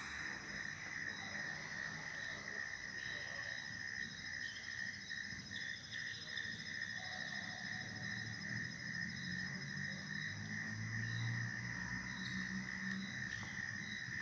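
Crickets chirping: a continuous high trill, with a second, higher chirp pulsing steadily above it. A faint low hum comes in during the second half.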